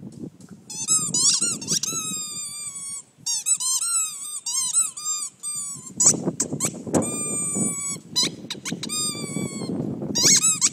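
A dog's squeaky toy ball being bitten and chewed, squeaking over and over in quick runs of short, high squeaks that bend in pitch, with low scuffing noise between the squeaks in the second half.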